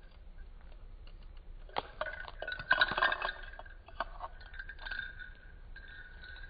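Clicking and clinking as a rat handles a small toy treasure chest sitting on a glass jar, pushing at the chest and dropping a ball into it. A quick run of sharp knocks starts about two seconds in, peaks around three seconds in and thins out after four seconds.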